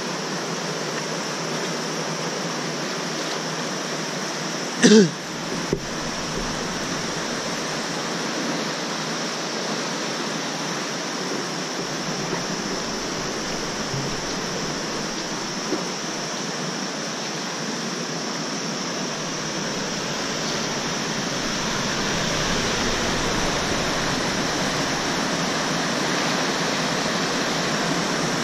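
Mountain river rushing over boulders in rapids, a steady full rush of white water. About five seconds in, one brief, loud pitched call cuts through it.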